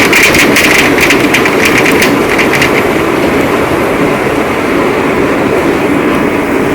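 Heavy rain falling steadily, with sharp clicks of close drops landing through the first two or three seconds.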